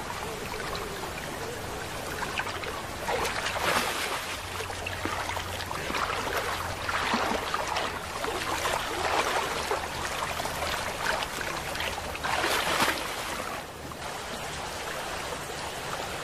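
Water splashing and sloshing as a brown bear bathes in a shallow river. There are a few bursts of louder splashing over a steady wash of moving water.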